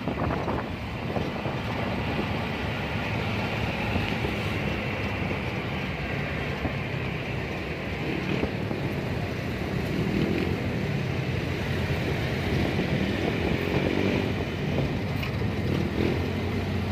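Steady traffic and engine noise heard from a vehicle moving through city traffic, with a low steady engine hum underneath.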